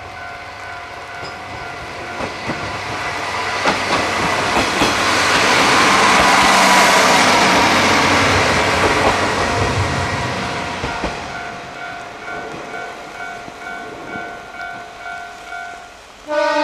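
KiHa 40 diesel railcar passing: the rumble of the engine and wheels swells to a peak in the middle and fades away, with clicks of the wheels over rail joints. A steady pulsing ringing tone sounds throughout, and a loud horn blast begins right at the end.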